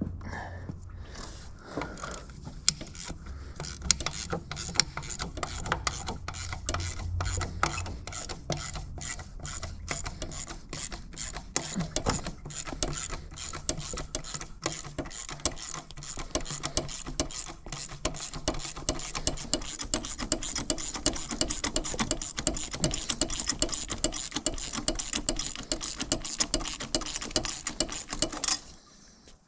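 Hand ratchet wrench clicking in long, quick runs as it is swung back and forth to turn a bolt, stopping shortly before the end.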